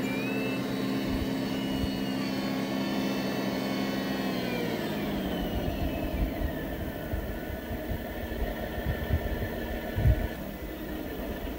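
Engine sound of a radio-controlled MB trac model tractor as it drives down a loading ramp onto grass. The steady running note falls in pitch as the tractor slows and stops, then settles to a lower, fainter idle.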